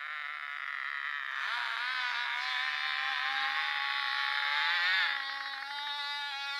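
An engine running at a distance, its pitch rising about a second and a half in, holding steady, then rising again near the five-second mark before settling.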